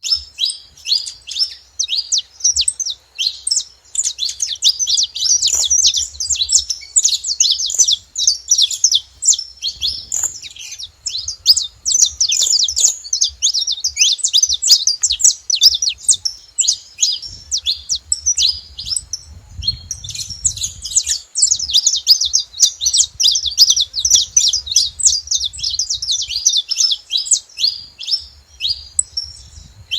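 Saffron finches chirping in rapid, dense, near-continuous runs of high notes, with a few brief lulls.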